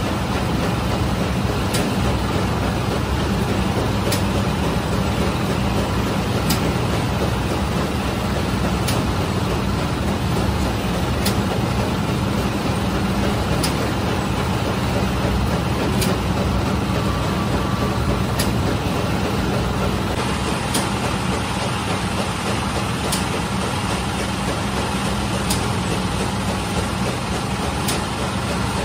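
Automatic bread-baking machine running with a loud, steady mechanical drone and a sharp tick repeating about every two and a half seconds.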